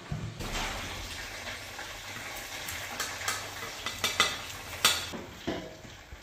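Sizzling hiss of freshly fried fish being tipped out of a wire mesh fry basket onto a plate, with a few sharp clinks and knocks of the metal basket and fish against the plate from about three seconds in.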